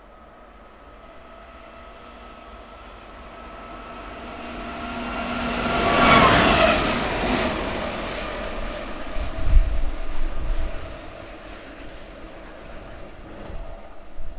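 A DB class 232 'Ludmilla' diesel locomotive passes through the station at speed. Its engine and running noise grow louder as it approaches and are loudest as it goes by about six seconds in. A second surge of deep engine rumble comes around nine to ten seconds, then the sound falls away as it recedes.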